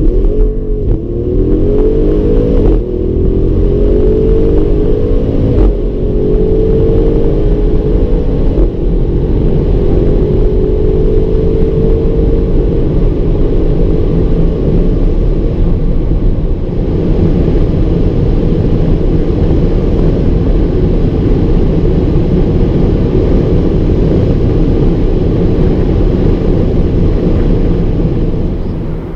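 Audi RS6 Avant's twin-turbo V8 pulling hard through the gears, its note rising and dropping back at each upshift about every three seconds, then settling into a steady high-speed drone. The sound drops away sharply at the end.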